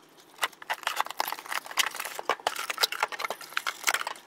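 Cardboard box and packaging being handled as a cordless circular saw is taken out: a busy run of rustles, scrapes and light knocks.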